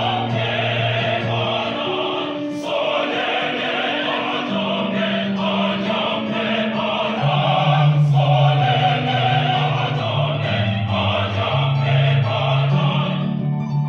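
Mixed choir singing in parts, holding sustained chords that change every second or two.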